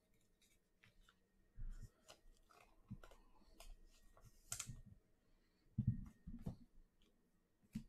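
Soft, scattered clicks and rustles of football trading cards being slid past one another by hand, with a few light taps; the sharpest click comes just past halfway.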